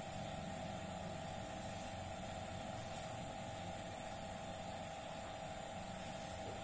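A steady mechanical hum with an even hiss, holding one pitch throughout.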